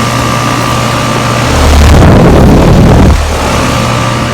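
Carrier 2.5-ton outdoor air-conditioner condenser unit running with a steady electrical hum and a whine. From about a second and a half in, a louder low rumble swells for under two seconds and then drops back.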